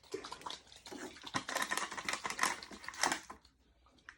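Quick clicks and rustles of small plastic toy parts and packaging being handled, stopping about three and a half seconds in.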